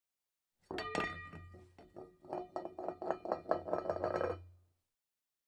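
A quick run of clinks and taps, some of them ringing briefly, over a steady low hum. It starts suddenly about a second in and cuts off after about four seconds.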